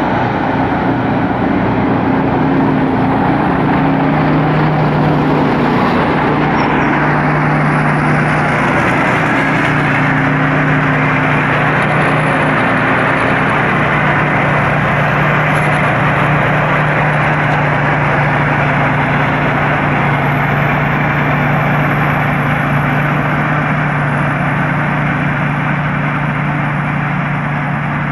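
Thai Seng Yont 'Chao Phayu' rice combine harvester running while harvesting: a loud, steady engine and machinery drone with a constant low hum.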